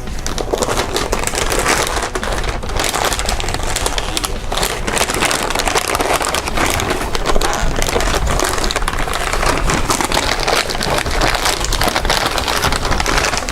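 Wrapping paper being torn off and crumpled as a present is unwrapped: a dense, continuous crackling rustle of paper.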